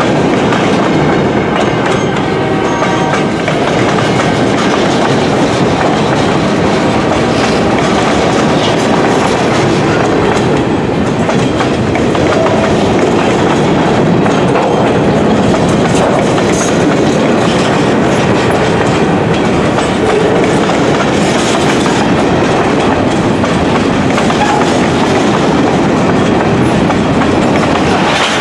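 Freight cars of a Canadian National mixed freight train rolling past close by: a loud, steady rolling noise of steel wheels on the rails with the clanking of the cars.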